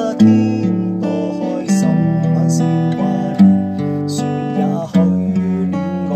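Fender steel-string acoustic guitar fingerpicked, its chords ringing on with a fresh pluck about every second and a half.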